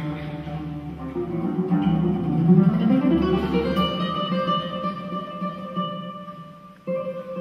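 Nylon-string classical guitar playing a solo passage of a concerto. It climbs in a quick rising run about two and a half seconds in, then lets notes ring on. A new chord sounds just before the end.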